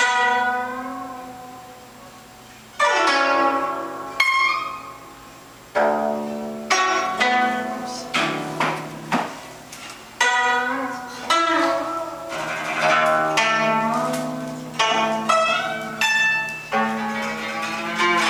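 Guzheng played solo: single plucked notes left to ring out, some bent in pitch as they fade, then quicker runs of notes from about six seconds in.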